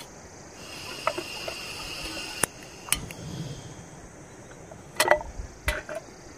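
Gas hissing from a burner screwed onto a small portable LPG cylinder, with two sharp clicks as it is lit. A few seconds later come several metal clanks as a pan is set on the burner's grate.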